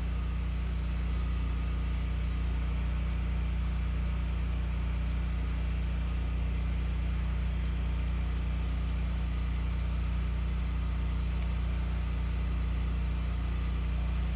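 A steady low hum that holds one level throughout, with a few faint light clicks.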